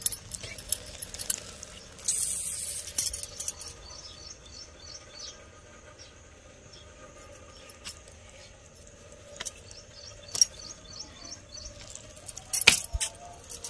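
A steel spoon clinking against a steel kadhai of pumpkin curry, in sharp clicks that are loudest near the end, with a short burst of rustling about two seconds in. Faint bird chirps repeat in the background.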